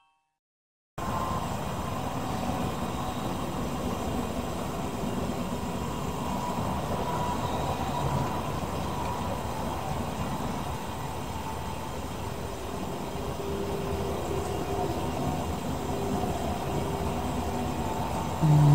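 About a second of silence, then a steady rumbling background noise with faint humming tones, and a short louder low sound near the end.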